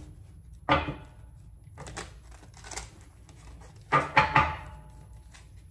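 Tarot cards being handled and shuffled: several short papery slaps and riffles, the loudest cluster about four seconds in.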